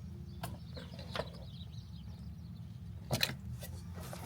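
A few sharp clicks and knocks from parts being handled and moved aside in the fuel pump well, two of them close together just after three seconds, over a steady low hum.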